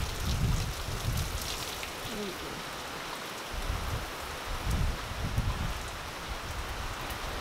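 Heavy rain pouring down in a severe thunderstorm, a steady hiss, with repeated low rumbling surges of wind buffeting the microphone.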